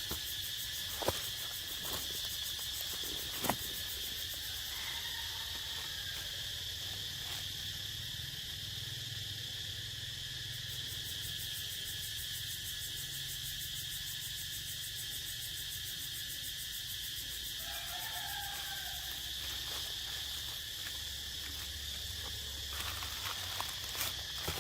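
Steady high-pitched insect chorus, with a few sharp clicks in the first few seconds and brief faint calls about five and eighteen seconds in.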